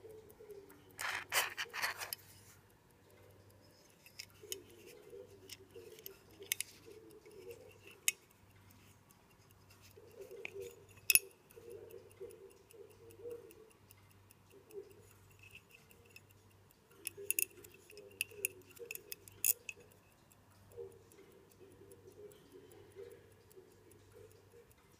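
Molnija mechanical pocket watch ticking steadily close up. A quick run of clicks comes about a second in, and a sharp click, the loudest sound, comes about eleven seconds in as the hunter-case lid springs open.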